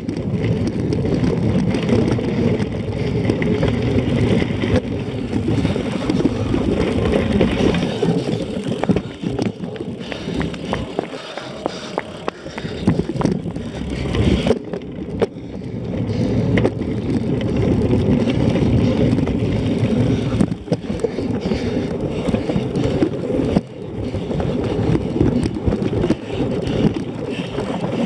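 Cyclocross bike rattling and rumbling as it rides over a bumpy grass course, with many small knocks from the frame and the handlebar-mounted camera. The noise eases for a few seconds in the middle.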